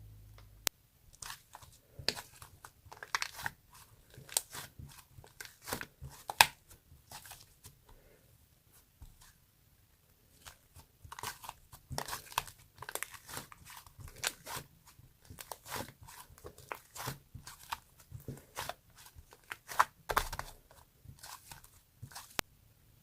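Hands squeezing and pulling apart a soft dough of whipped cream and flour, giving many irregular short sticky crackles, with a lull of a few seconds midway.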